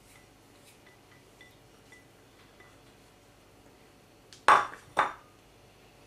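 Glassware knocking twice, about half a second apart near the end: a sharp clink of a glass mixing bowl being handled. Before that come faint light taps of a silicone spatula scraping powdered sugar out of the glass bowl.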